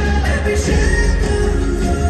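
Show music with a singing voice over a heavy bass.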